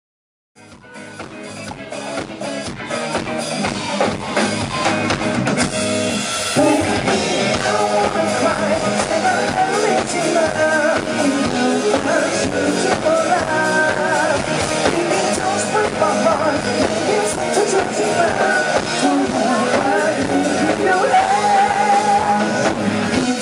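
A live rock band plays drums, bass guitar and electric guitar while a male lead vocalist sings into a microphone. The song fades in over the first few seconds, then stays loud and steady.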